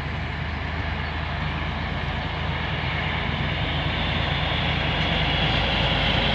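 SU45 diesel locomotive running as it rolls in hauling passenger coaches, a steady low engine drone that grows gradually louder as the locomotive draws near.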